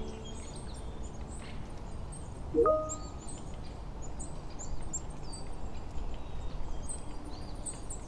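Small birds chirping, many quick high chirps, over a low steady background noise. About two and a half seconds in, one louder short sound rises in pitch and then holds briefly.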